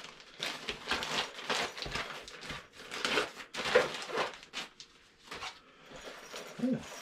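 Clear plastic packaging bag crinkling and rustling in the hands as a fabric organizer bag is pulled out of it, in irregular crackles over the first five seconds, then quieter handling of the fabric bag.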